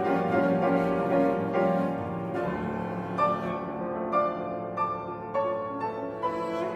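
Cello and grand piano playing classical music together; about two and a half seconds in the cello falls silent and the piano carries on alone with a series of separately struck chords.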